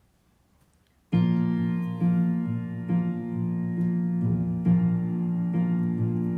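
About a second of near silence, then a keyboard instrument begins playing sustained chords, with a new chord struck roughly once a second.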